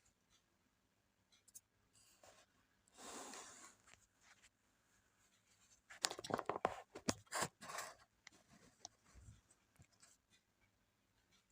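A pry tool scraping along the seam of an Acer One 14 Z1401 laptop's plastic bottom case, then a quick run of sharp plastic clicks and cracks as the case is levered open.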